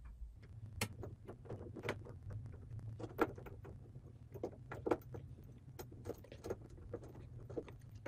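Small flathead screwdriver unscrewing the screws of a toggle light switch's wall plate: faint, irregular metal clicks and scrapes, over a low steady hum.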